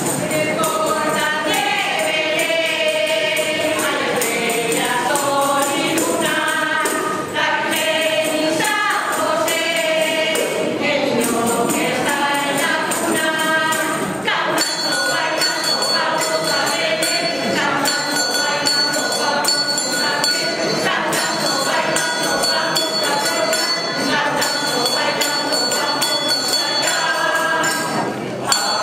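Mixed choir of men's and women's voices singing a Spanish Christmas carol (villancico) together. About halfway through, a jingling percussion instrument joins the singing.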